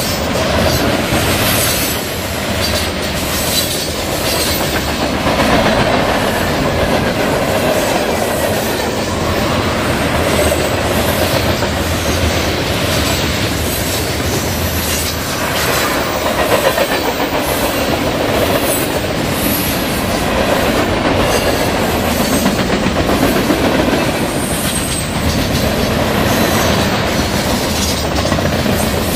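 Cars of a Norfolk Southern mixed freight train (boxcars, covered hoppers and tank cars) rolling past at close range: a steady, loud rumble of steel wheels on rail with repeated clacks as the wheels cross rail joints.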